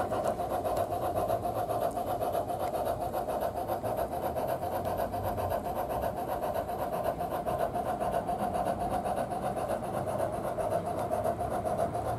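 Rapid, even steam chuffing of a geared Climax locomotive, played by a Soundtraxx Tsunami sound decoder through the speaker of a G-scale Bachmann Climax as it runs.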